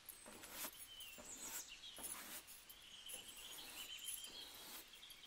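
A short hand broom swept across a floor in a series of irregular brushing strokes, with faint bird chirps in the background.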